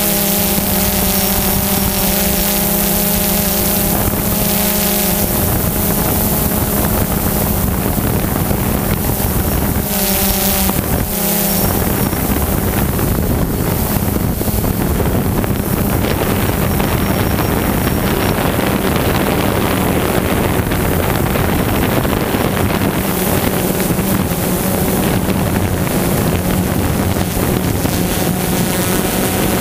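Multicopter drone's electric motors and propellers whirring steadily, with some wind noise on the microphone. The pitch wavers about ten seconds in, and after that the whir turns noisier and less even.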